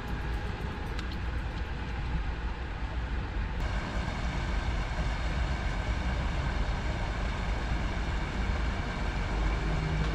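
Steady low rumble with a hiss over it, like road traffic or wind noise. Its character shifts abruptly about three and a half seconds in.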